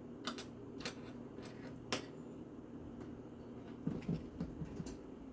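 Light clinks of a kitchen utensil against a dish, five sharp ones in the first two seconds, then a few soft, dull knocks about four seconds in as the roast and its pan are handled.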